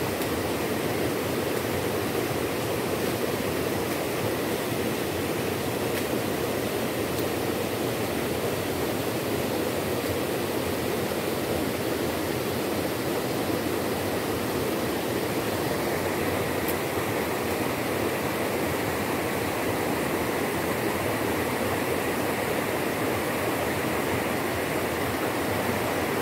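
Small, fast-flowing forest stream rushing steadily over rocks.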